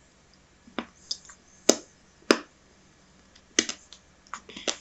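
Sharp wet mouth clicks and lip smacks, about six of them spaced unevenly, from someone tasting and chewing phalsa berries dusted with black salt.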